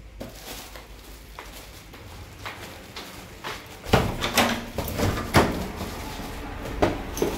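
Clicks and knocks of a wooden door's latch and lock being worked as it is opened, the loudest strokes between about four and five and a half seconds in, with a couple more near the end.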